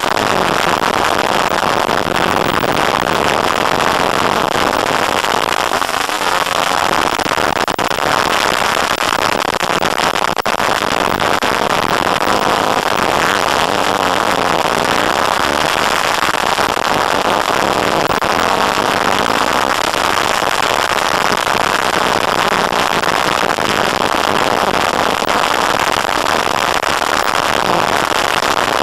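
Dirt bike engine running at speed along a dirt track, mixed with wind rush on the microphone: a steady, loud, rough noise with no clear pitch and no pauses.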